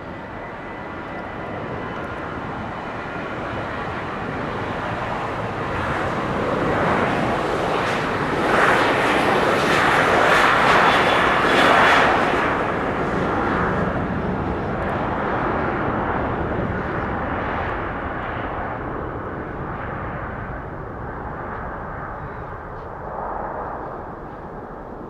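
Airliner's engines passing close by: the sound builds to a peak about halfway through, then slowly fades away.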